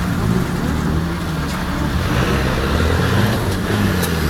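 Off-road 4x4 vehicle's engine running, its revs rising and falling.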